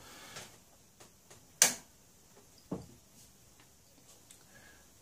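Handling noises from hooking a load up to a bench power supply: one sharp click about one and a half seconds in, a duller knock about a second later, and a few faint ticks.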